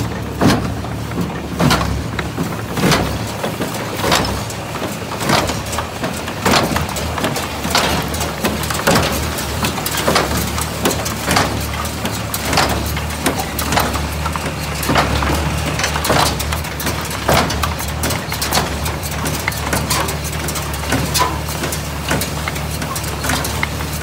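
International Harvester 46 square hay baler running under power with hay being fed in: a steady low drone from the drive with a regular knock a little more than once a second and lighter clatter between.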